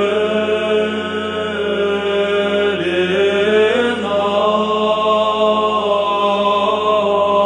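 Male monastic choir singing Russian Orthodox chant a cappella: long held notes that step to new pitches every second or so over a steady low bass note.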